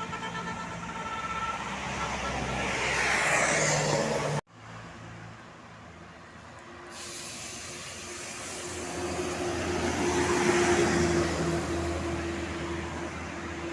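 Buses passing on a road: one swells and goes by in the first few seconds, then the sound cuts off suddenly. Another comes up and passes with a steady engine hum, loudest about ten seconds in.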